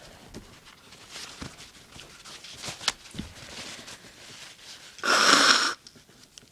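A person sniffing and breathing through the nose, then about five seconds in one loud, forceful burst of breath through the nose lasting under a second.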